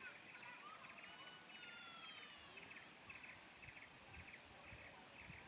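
Faint countryside ambience: a high chirping repeating several times a second throughout, with a few sliding bird calls in the first two or three seconds.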